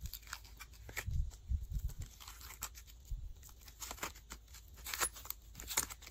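A thin clear plastic mould flexing and crinkling as soft clay is peeled and pulled out of it, with irregular sharp crackles and clicks and a few soft low thumps in the first couple of seconds.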